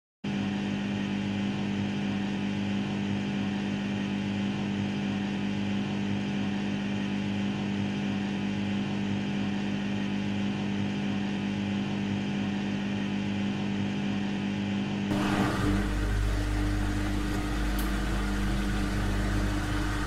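AEG Lavamat front-loading washing machine running with a steady motor hum. The hum cuts in abruptly just after the start. About 15 s in, a deeper rumble joins and it gets slightly louder.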